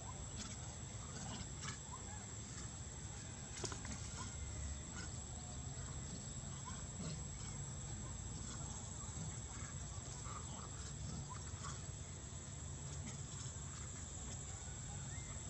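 Faint short calls and small scuffling clicks from a troop of long-tailed macaques, over a steady high-pitched drone and a low rumble.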